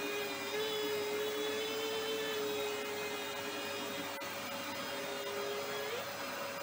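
Vacuum cleaner running steadily, its motor whine wavering slightly and jumping up in pitch near the end. A single brief click comes about four seconds in.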